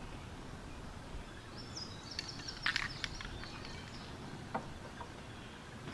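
Steady low outdoor background noise, with a bird giving a short high call about two to three seconds in.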